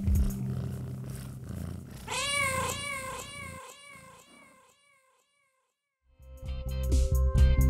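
Dub reggae bass and beat, then a long, wavering domestic cat meow about two seconds in that trails away. The track drops to near silence for over a second before the bass and drums come back in near the end.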